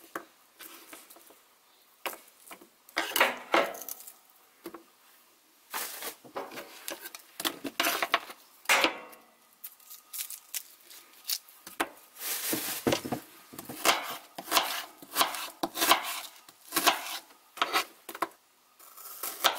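A dull kitchen knife slicing an onion. The blade knocks on the cutting board in irregular strokes with short pauses between them, along with the rustle of onion pieces being handled.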